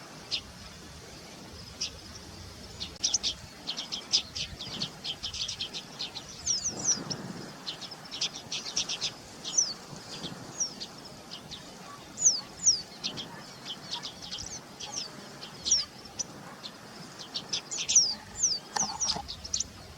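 White-browed meadowlark calling: rapid clusters of short, high, sharp chirps mixed with quick downward-slurred whistles, repeated again and again.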